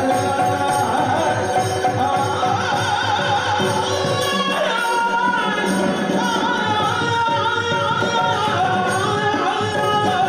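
Yakshagana theatre music: the bhagavata singing an ornamented verse, accompanied by chende and maddale drums. The deep drum strokes drop back briefly near the middle.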